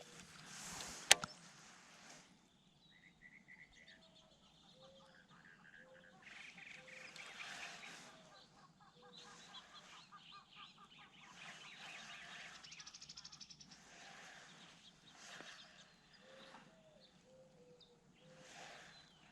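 Faint bird calls and chirps, short repeated notes with a brief trill, over quiet outdoor ambience. A single sharp click sounds about a second in.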